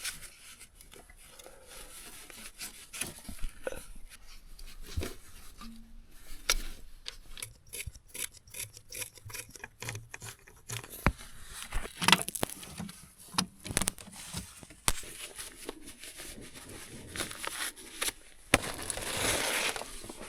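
Scattered clicks, knocks and scraping of hard objects being handled, irregular and without rhythm, with a hissing rush over the last two seconds or so.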